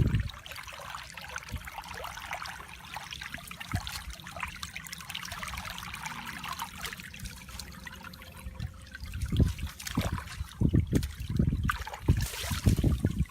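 Water trickling and dribbling, a steady light splashing, with a run of low bumps and knocks starting about nine seconds in.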